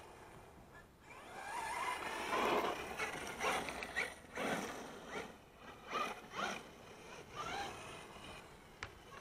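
Brushless 4350kv electric motor of an FTX Carnage 2.0 RC truck whining in a series of short throttle bursts, its pitch rising and falling again and again.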